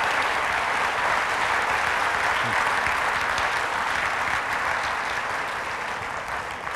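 Audience applauding, steady and slowly fading near the end.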